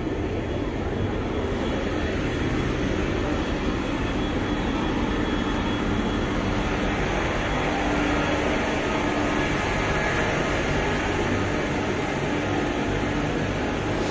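Steady rumble and hum of a passenger ship's machinery, heard on board, with no change in level.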